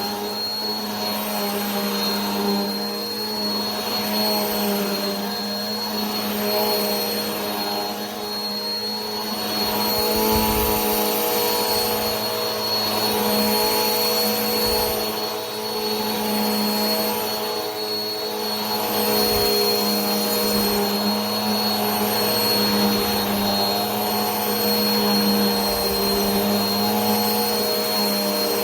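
Vacuum cleaner running continuously: a steady motor hum with a constant high whine over a rush of air.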